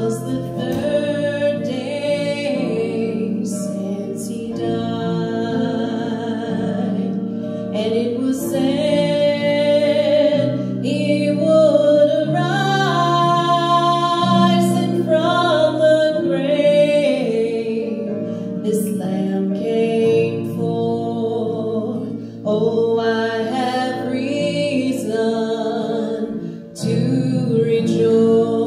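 Gospel song: a voice singing long held notes over sustained instrumental accompaniment with a steady bass line.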